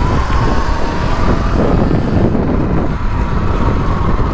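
Sur-Ron electric dirt bike being ridden off-road: a thin electric-motor whine that rises a little and fades about halfway through, over a loud rough rumble of the ride on knobby tyres.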